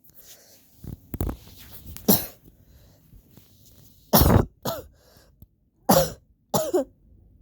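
A person coughing with an allergy cough: a series of about seven short, harsh coughs in several fits, with brief pauses between them.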